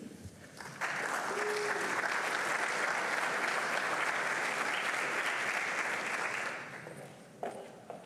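Audience applauding, starting about a second in and fading away about two-thirds of the way through.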